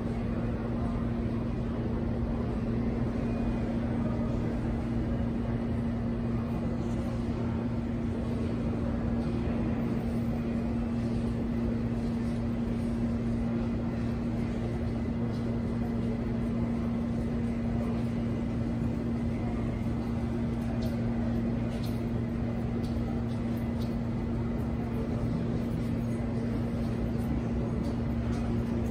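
Steady low drone of an underground subway platform with no train moving: a constant hum with one held tone, unchanging in level throughout.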